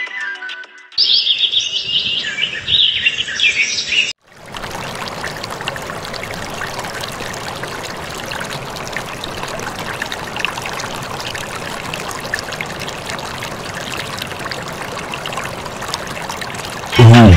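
Birds chirping for a few seconds, then water pouring in a steady stream from a small pump's hose outlet into a shallow pool.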